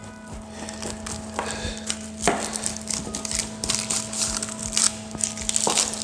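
Crisp baked puff-pastry crust crunching and crackling as a pizza wheel cutter is pressed and rolled through a tomato tart, in irregular crunches throughout, over a steady faint hum.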